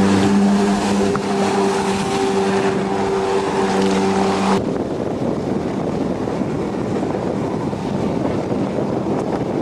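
Jet ski engine running at speed with a steady drone. About halfway through it cuts off abruptly, giving way to wind buffeting the microphone.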